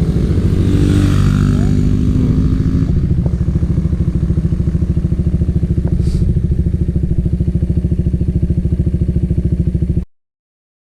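Suzuki Raider R150 single-cylinder motorcycle engine running, its pitch shifting for the first few seconds, then settling to a steady speed with a fast, even pulse. The sound cuts off suddenly near the end.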